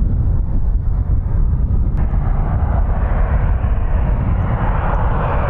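Learjet C-21's twin turbofan engines on landing approach: steady jet noise over a deep rumble, the hiss growing stronger near the end as the jet comes closer.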